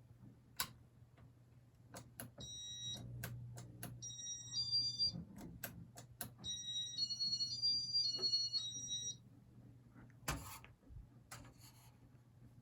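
Casablanca ceiling fan's electronic control beeping through its demo mode: a run of short high electronic beeps stepping between several pitches from about two seconds in to about nine seconds, with sharp clicks scattered throughout. A low steady hum lies underneath.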